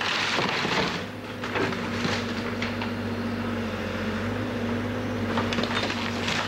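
A machine's engine running steadily while the burned cabin's wood cracks, splinters and crunches as it is torn down.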